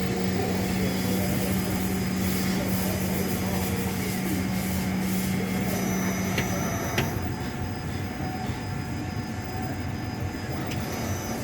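Roland desktop milling machine running, its motor giving a steady hum while a series of clicks comes from the moving axis. The hum stops about seven seconds in, with a sharper click just after. The clicking is an unwanted fault noise that occurs only when the base travels forward.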